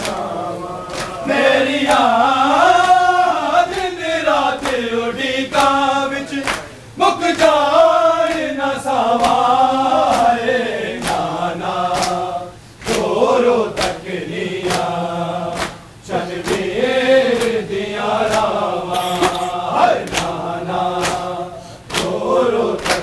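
Men chanting an Urdu noha, a Muharram lament, in unison, with a steady beat of open-hand slaps on their chests (matam) about one and a half times a second.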